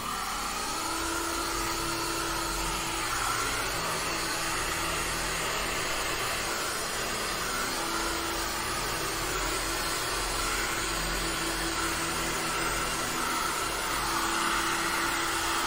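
Handheld electric heat gun blowing steadily: a constant rush of hot air with a faint motor hum that comes and goes. It is being swept over wet epoxy resin to even it out.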